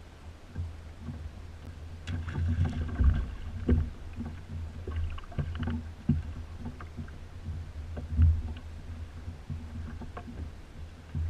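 Choppy water lapping against a plastic fishing kayak, with a steady low rumble and scattered knocks and bumps from movement in the kayak. The loudest thumps come about three and eight seconds in.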